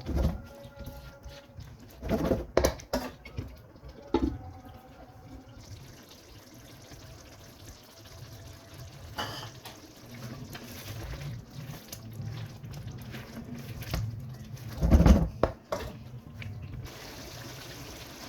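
Cooking sounds: a utensil knocking and clinking against cookware, with wet liquid sounds between the knocks. The loudest knocks come about two to three seconds in and again about fifteen seconds in.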